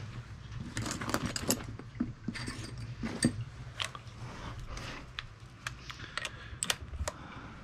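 Metal hand tools clinking and clicking as they are picked up and handled, a ratchet with a long socket extension among them, in scattered sharp taps. A steady low hum runs underneath.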